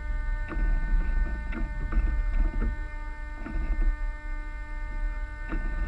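Muffled water slapping against the hulls of a Mini40 model trimaran under sail: a low steady rumble with about half a dozen irregular knocks as the hulls meet small waves, over a steady electrical hum.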